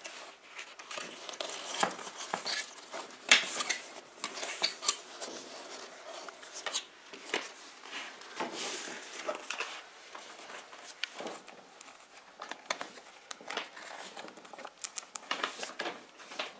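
A leather seat cover with its fabric lining being handled and pulled over a motorcycle seat: irregular rustling and scuffing with many short, sharp clicks and light knocks.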